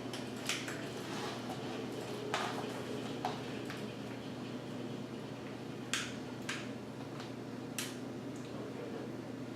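Several light, separate clicks and taps, about six spread unevenly, over a steady low room hum.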